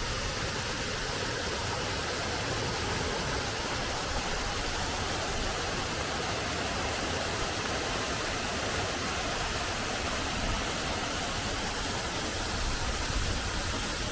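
Waterfall in heavy flow after torrential rain, a steady rushing of water with no break.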